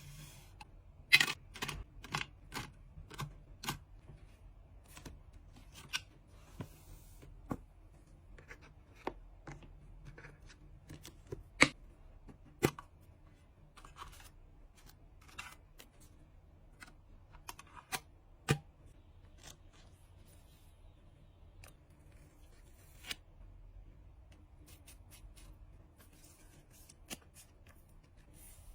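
Hands packing trading cards: a string of sharp clicks, taps and light rustles of card and plastic packaging, quick and close together in the first few seconds, then spaced out, with a few louder snaps in the middle.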